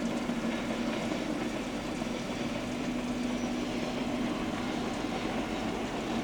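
Electric train running on the line: a steady rumble of running noise with a steady low hum.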